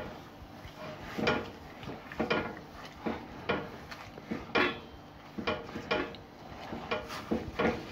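Milled malt grains being stirred into warm water in a stainless steel pot at mash-in: a string of short, irregular scraping and rustling strokes, roughly one a second, with light knocks against the pot.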